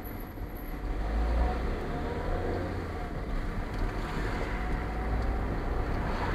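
Car driving, heard from inside the cabin: a steady low engine and road rumble with tyre noise, which gets louder about a second in.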